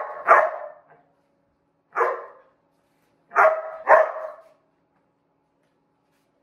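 Seven-month-old Belgian Malinois puppy barking five times with short, sharp barks: a quick pair at the start, a single bark about two seconds in, and another quick pair near four seconds in.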